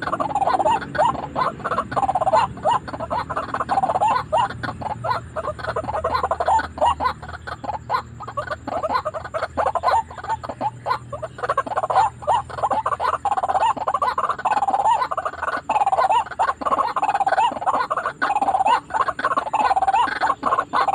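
White-breasted waterhens calling: an unbroken run of rapid, harsh, repeated croaking calls.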